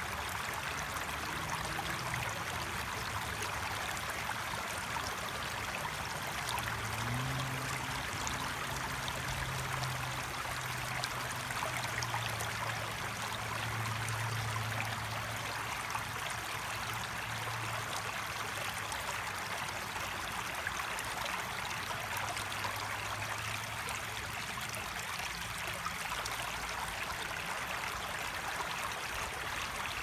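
Shallow stream running over rocks in a small cascade into a pool: a steady, even rush and trickle of water.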